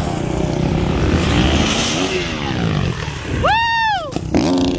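Motocross bike's engine revving and gliding up and down in pitch as it leaves the ramp and flies through a backflip. Late on comes a loud, high, whistle-like tone that rises and falls.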